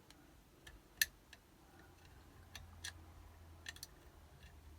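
Light, irregular metallic clicks of a pick wire and lever tool working the levers inside a Legge five-lever mortise lock, as the levers are reset after a false gate and picked again. About eight clicks, the sharpest about a second in.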